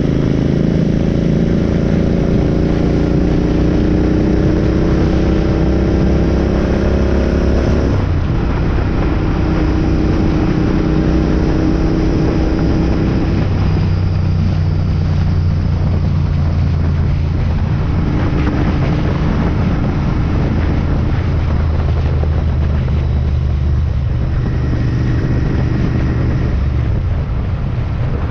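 Royal Enfield Continental GT 650's parallel-twin engine under hard acceleration, its pitch rising steadily for about eight seconds. It drops suddenly with an upshift, then runs at a steady cruise with a few small throttle changes.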